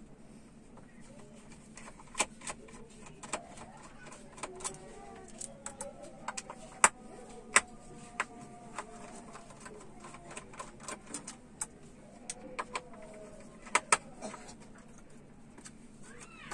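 Irregular sharp clicks and taps of plastic wire connectors being pulled off a TV main board and cables handled against the sheet-metal back chassis, a few louder snaps among them, over a faint steady hum.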